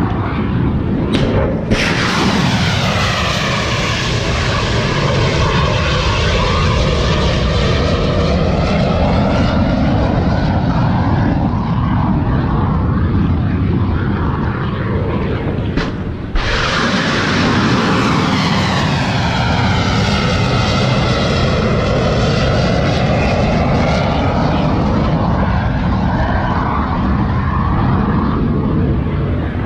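Two Tomahawk cruise missiles launched from a destroyer's vertical launch system, about fifteen seconds apart. Each starts with a sudden blast as the rocket booster fires, then a loud roar that holds for about fourteen seconds as the missile climbs away, its tone sweeping down and back up.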